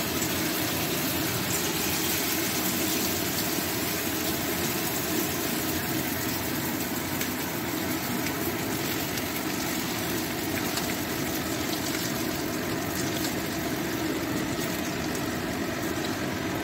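Chicken pieces in a cornflour and egg-white batter deep-frying in hot oil in a steel wok: a steady, dense sizzle.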